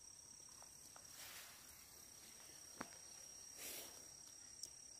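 Faint, steady high-pitched trilling of crickets, with two soft rustles and one small click in the middle.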